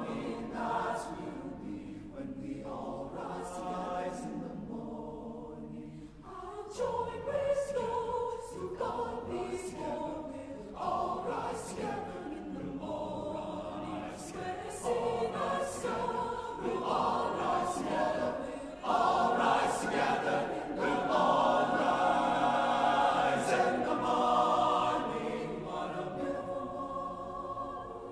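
Mixed-voice high school chamber choir singing sustained chords, growing louder in the second half.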